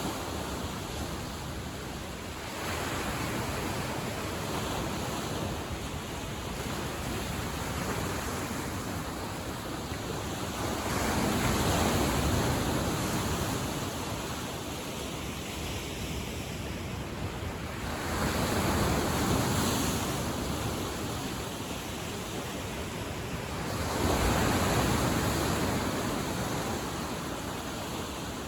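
Lake Michigan waves washing onto the shore, a steady rush of water with three larger waves surging in several seconds apart.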